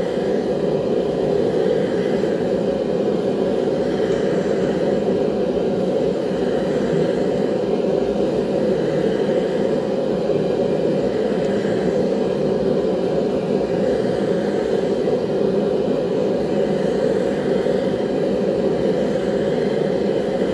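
Homemade single-burner fire brick forge running with a steady, even rush of burner flame while steel blades heat for annealing.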